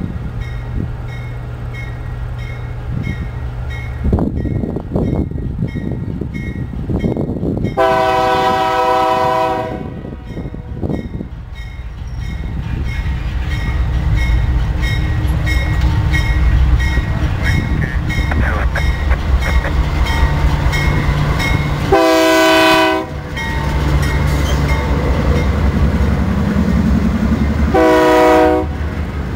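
Norfolk Southern diesel freight locomotives sound a multi-chime air horn as they approach and pass a grade crossing: one long blast about eight seconds in, then two shorter blasts near the end. A crossing bell dings steadily throughout, and the engine and wheel rumble builds as the locomotives go by.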